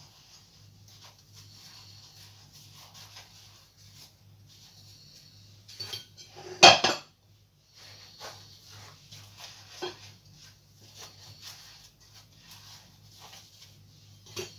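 Paper rustling and sugar scraping as fried doughnuts are rolled in cinnamon sugar, with light knocks of dishware and one loud clatter about seven seconds in, over a faint steady hum.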